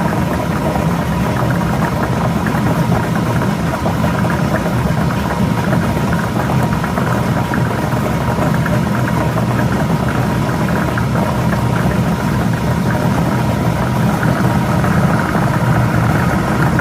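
Electric lottery ball-drawing machine running steadily, its motor humming with a constant whir.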